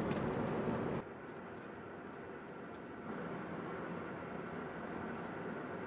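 Steady road and engine noise of a moving passenger van. The level drops abruptly about a second in, then carries on evenly.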